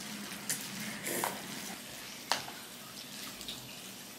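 A person slurping and eating noodles with chopsticks: a wet, noisy slurp with a few short clicks, the sharpest a little over two seconds in.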